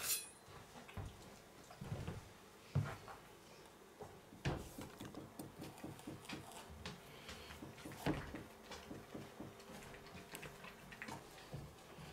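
Large kitchen knife cutting through a small whole pumpkin on a wooden cutting board: a few sharp knocks, then a run of quick ticking, crunching cuts through the rind from about four seconds in until near the end.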